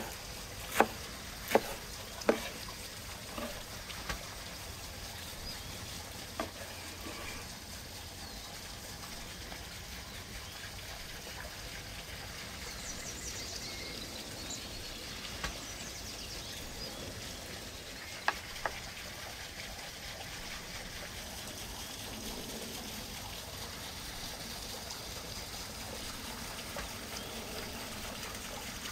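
A cleaver chopping leafy greens on a wooden cutting board: several sharp chops in the first few seconds, then a few isolated knocks later, over a steady trickle of running water.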